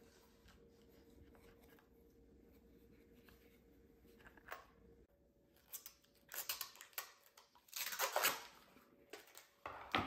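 Quiet handling for the first half. Then, about halfway through, a plastic knife rack is pulled from its packaging, with bursts of rustling and scraping, and near the end a sharp knock as the rack is set down on the table.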